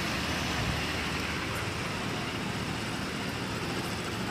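A steady engine rumble with an even hiss over it, with no separate knocks or tones standing out.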